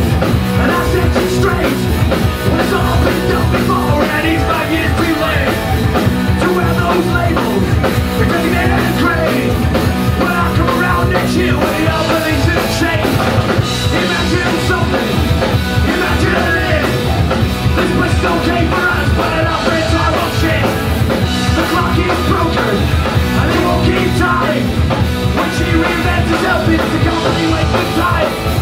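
Live punk rock band playing loud: two distorted electric guitars, bass guitar and drum kit, with no break.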